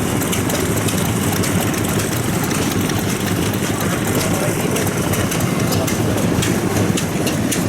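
Old farm stationary engines running together at idle, a steady mechanical chugging with many small knocks and clicks, mixed with voices in the background.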